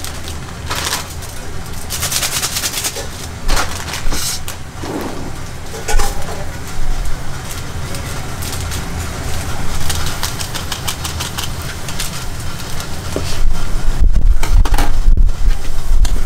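Plastic instant-noodle packets crinkling as they are handled and opened, over the steady low rumble of a gas burner. From about three seconds before the end the rumble grows louder as a pot of ramen boils hard on the burner.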